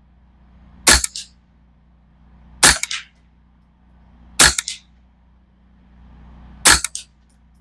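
Ruger 10/22 semi-automatic .22 rimfire rifle fired four times, slow and deliberate, about one shot every two seconds, each sharp crack trailed by a short echo. A steady low wind rumble sits on the microphone between shots.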